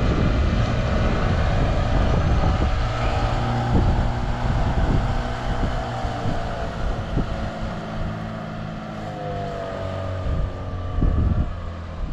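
Small outboard motor on an aluminium fishing boat running under way, a steady engine drone that fades somewhat past the middle. Wind is buffeting the microphone.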